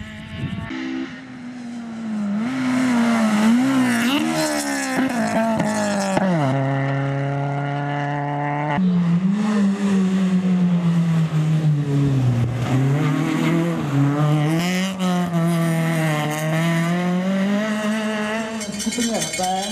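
Honda Civic VTi rally car's four-cylinder engine revving hard at full throttle, the pitch climbing and dropping again and again with gear changes and lifts, and holding steady for a couple of seconds midway.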